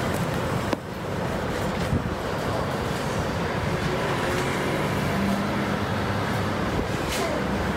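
Street ambience: steady road-traffic noise, with a couple of faint knocks near the start.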